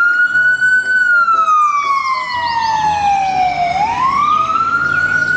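Ambulance siren on a slow wail: it holds high for about a second, slides down over nearly three seconds, then climbs back up near the end.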